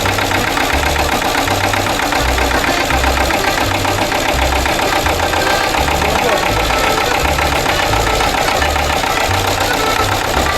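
Restored vintage marine engine running steadily, with a fast, even knocking firing beat.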